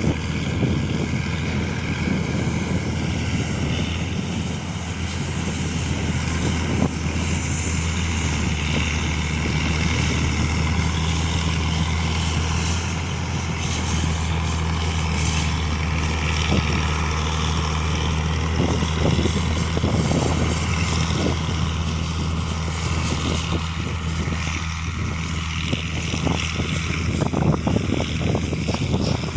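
Manpreet combine harvester running steadily: a constant low engine drone with a mechanical whirr over it, and a few knocks near the end.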